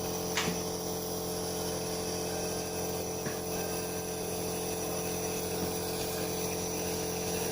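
Compressor nebulizer running with a steady motor hum during a child's inhalation treatment. A short sharp sound comes about half a second in.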